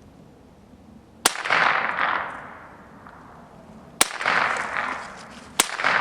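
Three shots from a Ruger 10/22 Takedown semi-automatic .22 LR rifle: about a second in, at about four seconds, and near the end. Each sharp crack is followed by an echo that rolls away over about a second.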